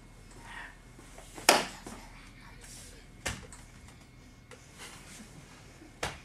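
Three sharp knocks: the first, about one and a half seconds in, is by far the loudest, and two weaker ones follow near the middle and near the end.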